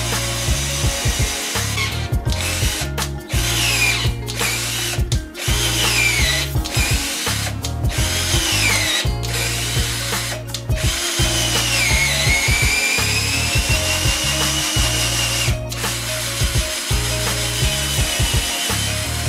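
FPSh-5M combined woodworking machine running as a power tool, in short cut-together bursts, with whine-like tones that slide down and back up in pitch. Background music with a steady low bass plays underneath.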